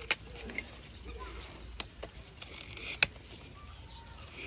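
Tamanduas feeding on a watermelon: a few sharp, wet clicks and smacks from mouths on the fruit, spaced irregularly, the loudest about three seconds in.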